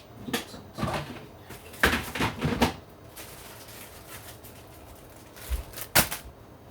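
Objects being handled and set down on a bench: two clusters of light knocks and rattles in the first three seconds, then a dull thump and one sharp knock near the end.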